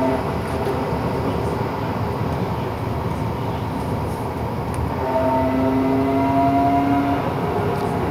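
NGT D8DD low-floor tram running along the street, heard from inside at the front: a steady rolling rumble, with a whine of several tones that rises gently in pitch from about five seconds in and fades again about two seconds later.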